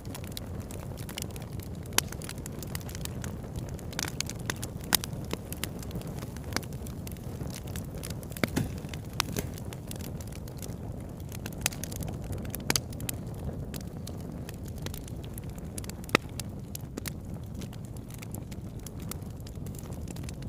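Wood campfire burning: a steady low rush with frequent sharp crackles and pops, and a handful of louder snaps scattered through.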